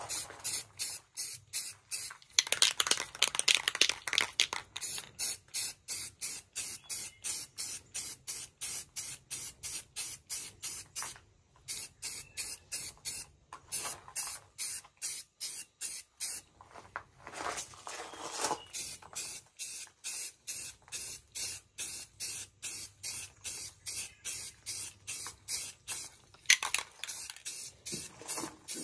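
Aerosol rust-reformer spray paint hissing from a rattle can onto sheet metal, in quick short bursts about two to three a second, with a few longer sprays between them.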